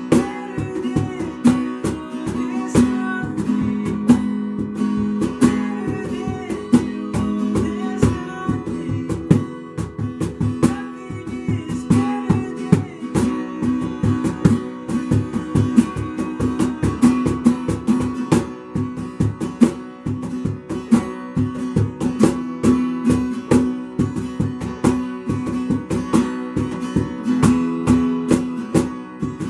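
Instrumental worship music led by acoustic guitar strumming at a steady pace.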